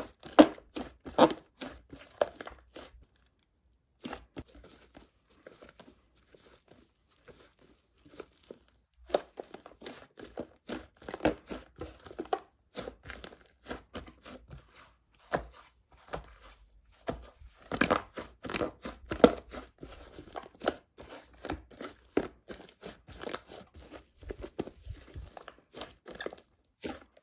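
Hands squishing, stretching and poking a thick slime, making many quick, irregular crackles and pops, with a brief pause about three seconds in and another around sixteen seconds.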